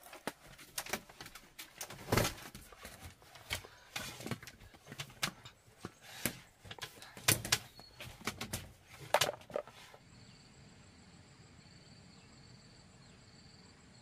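Irregular close-up knocks and rustles of things being handled, for about ten seconds. Then they stop and a faint, steady high-pitched insect chirring, pulsing evenly, takes over.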